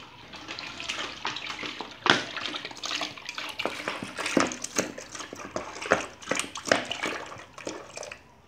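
Lemon juice pouring from an upturned plastic bottle into a bucket of juice, splashing in irregular glugs as air bubbles up into the bottle. It trails off near the end as the bottle empties.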